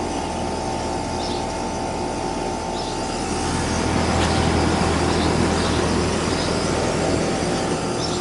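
Outdoor central air conditioner condensing unit, a Carrier, running with a steady hum and fan noise that gets louder about four seconds in and eases again near the end. Faint bird chirps sound now and then.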